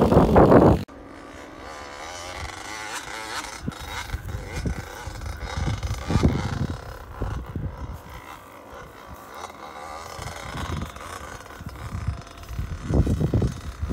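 Small dirt bike engine running across an open field, its pitch wavering up and down with the throttle. It is loud for the first second, drops abruptly to a fainter, more distant sound, and swells again near the end.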